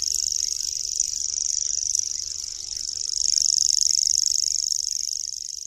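Common grasshopper warbler reeling: a continuous, high, insect-like trill held without a break, fading out near the end.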